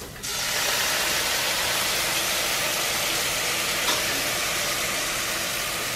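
Chicken broth poured into a hot sauté pan of onions, celery and flour, sizzling: a loud, steady hiss that starts suddenly just after the beginning as the liquid hits the pan and eases a little near the end.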